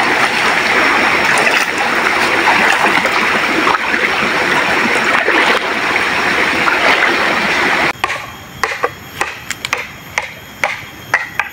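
Flooded river water rushing close by, a loud, steady noise. About eight seconds in it stops abruptly and gives way to a quieter background with a run of sharp, irregular clicks and knocks.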